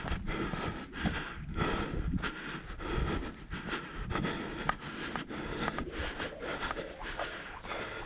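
A hiker's steady footsteps and breathing, swelling and fading about once a second with small clicks, over low rumble on a chest- or head-mounted action camera's microphone.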